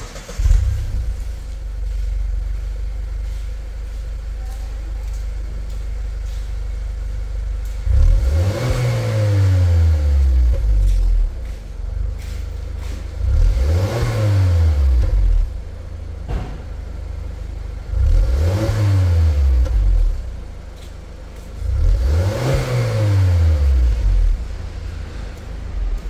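Mazda CX-5 engine heard through an HKS Legal Max axle-back exhaust with carbon tips. It runs at a steady idle, then is revved four times, each blip climbing quickly and falling back to idle over about two to three seconds.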